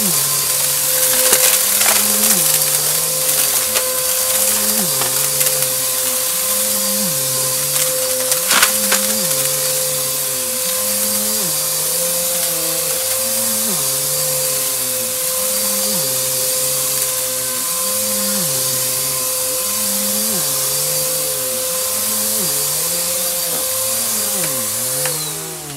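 Bissell AeroSwift vacuum cleaner running with a steady motor whine and a low sound that rises and falls in pitch about once a second, with a few sharp crackles of debris being sucked up. It shuts off near the end and the motor winds down.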